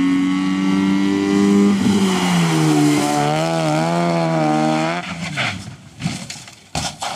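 Rally car engine running hard at steady revs, then dropping and wavering up and down as the car slides on gravel. About five seconds in the engine note cuts off and several heavy crashes and thuds follow as the car rolls over.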